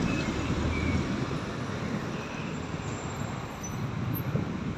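Street traffic noise: a steady low rumble of vehicles.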